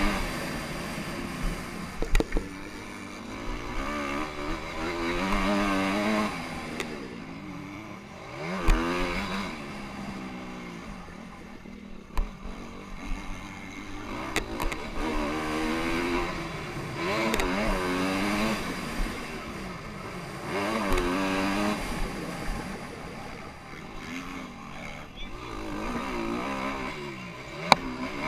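Honda CRF250R four-stroke single-cylinder motocross bike engine, revving up and dropping back again and again as the bike accelerates and shifts. A few sharp knocks cut in, about two seconds in, around nine seconds and near the end.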